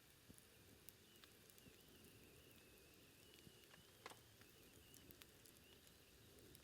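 Faint crackling of a low campfire burning down to embers: sparse small pops and ticks over a soft hiss, with one sharper pop about four seconds in.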